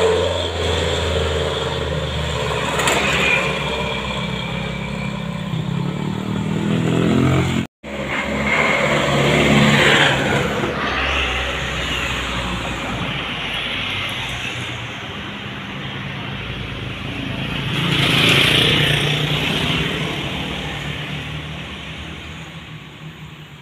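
Engines of a medium bus, then a minibus, pulling up a steep hill road as they pass and move away. The sound cuts out for a moment about eight seconds in, swells again around eighteen seconds, and fades toward the end.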